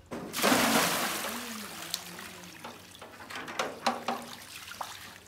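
Water gushing from a tap and hose, starting suddenly and loudest in the first second, then running on more quietly. A few sharp knocks in the second half as a metal pot is handled by the tap.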